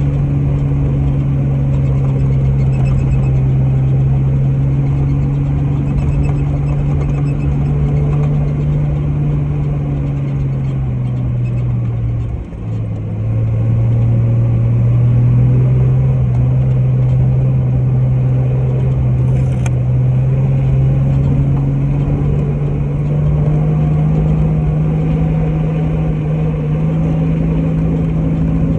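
A vehicle engine running steadily while driving, its note dipping briefly about twelve seconds in before picking up again.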